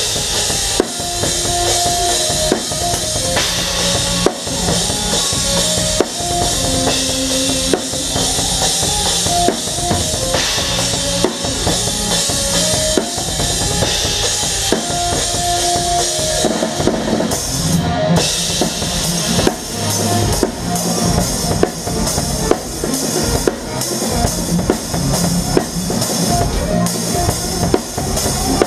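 Live band music with the drum kit up front: busy bass drum, snare and cymbals under a melodic line of held notes.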